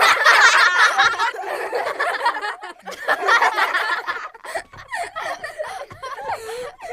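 People laughing and snickering, in short broken-up stretches.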